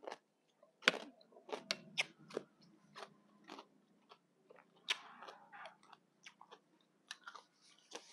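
Close-up chewing of a mouthful of spicy green papaya salad: an irregular run of crisp crunches and wet mouth clicks, about two or three a second, the loudest about a second in.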